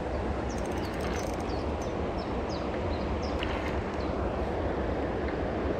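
Steady rushing of flowing river water, heavy in the low end, with a series of short high falling chirps over the first half.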